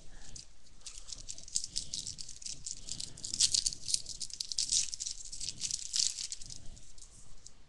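Baseball trading cards being flipped and shuffled through by hand: a rapid run of dry clicks and rustles of card stock, busiest in the middle.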